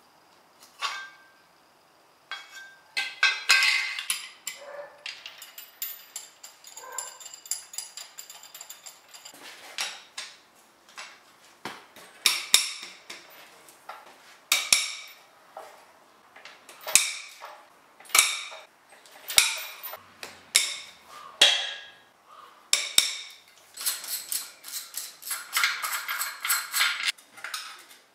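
Hand tools clinking and striking metal engine parts. Through the middle comes a series of ringing metal strikes about one a second, and near the end a fast run of clicks.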